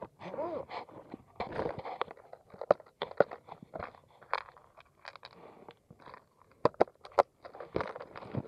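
Clear plastic tackle box and lure handled close to the microphone while changing lures: a string of sharp plastic clicks and knocks with rustling in between.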